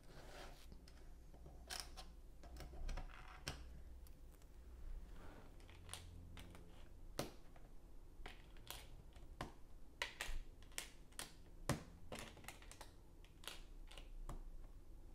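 Plastic Lego tiles clicking and tapping as they are picked up and pressed onto a plate: faint, irregular sharp clicks with no steady rhythm.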